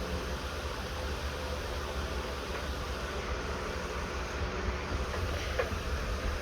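Steady low rumble with an even hiss over it, and one faint clink about five and a half seconds in.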